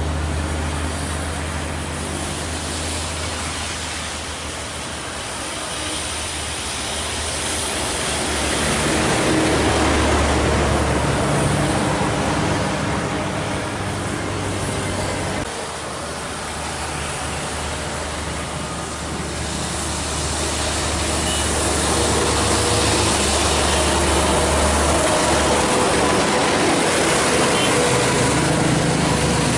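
Large diesel bus engines running as buses pass, over steady traffic and tyre noise from a wet road; it grows louder in stretches as vehicles come by.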